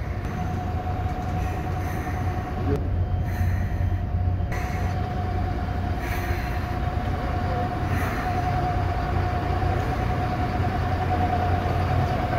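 Mercedes-Benz Citaro city bus standing with its engine idling: a steady low hum with a constant high-pitched whine over it, getting slightly louder near the end.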